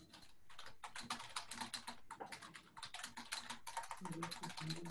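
Rapid typing on a computer keyboard: a quick, uneven run of keystrokes with short pauses, picked up by a video-call microphone.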